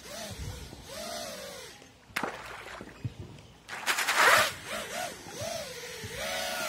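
FPV quadcopter's brushless motors and propellers whining, the pitch swinging up and down as the throttle changes. A loud splash and churning water about four seconds in as the drone plunges into the stream.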